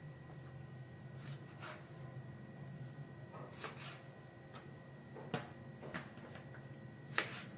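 Kitchen knife cutting small fresh fish (mackerel scad) on a plastic cutting board and fish being moved in a plastic bowl: a handful of soft, spaced-out taps and knocks. Under them runs a faint low steady hum.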